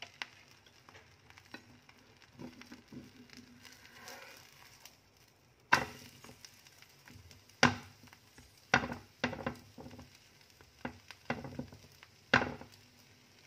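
Egg and bread omelette sizzling faintly in a frying pan. From about halfway, a metal spatula scrapes and knocks sharply against the pan several times as it lifts and turns the omelette.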